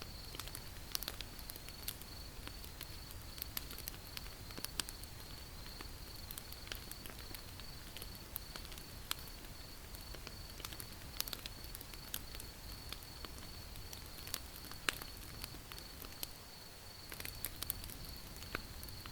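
Wood fire crackling: irregular sharp pops and snaps over a low, steady hiss, with a steady high-pitched trill behind it.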